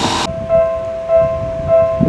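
Japanese railway level-crossing electronic warning bell ringing, a steady clanging tone repeating a little under twice a second over a low rumble. It starts after a brief rush of loud noise that cuts off abruptly just after the start.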